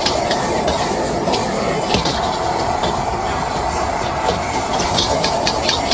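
A metal wok ladle clinking and scraping against a carbon-steel wok as rice is stir-fried, in quick runs of clinks that are thickest near the end. Beneath it runs the steady rush of a high-flame gas wok burner.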